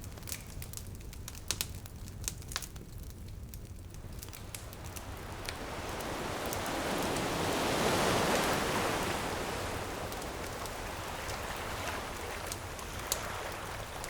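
Bonfire crackling and popping, with a single ocean wave swelling in about halfway through and washing back out.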